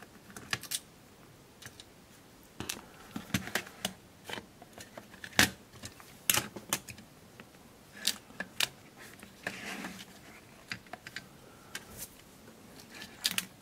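Scattered light clicks and knocks as a Casio VL-1's circuit board and plastic case are handled and the board is lifted out and turned over, with a short scrape about two-thirds of the way through.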